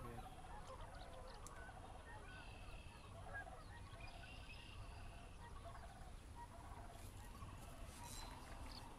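Faint chorus of distant wild birds calling, many short repeated calls overlapping, some of them honking calls like geese, over a steady low rumble.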